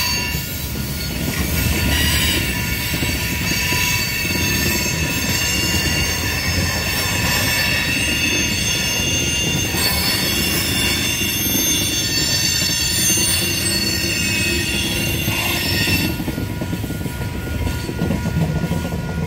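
Freight train tank cars rolling past at a grade crossing: rumbling wheels under a chorus of steady, high-pitched wheel squeal. The squeal stops suddenly about three-quarters of the way through as the last cars clear, while the rumble carries on. A faint steady tone from the crossing signal's bell runs underneath.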